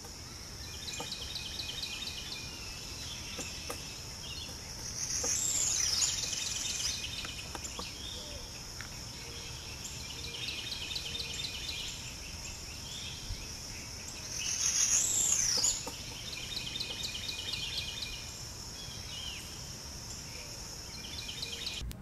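Woodland ambience: a steady high insect drone with bird calls and repeated pulsed trills. Louder calls come about five seconds in and again about fifteen seconds in.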